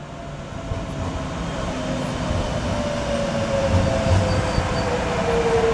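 Docklands Light Railway B92/B2K train pulling in alongside the platform. Its running noise grows louder, with a whine that falls steadily in pitch as the train slows.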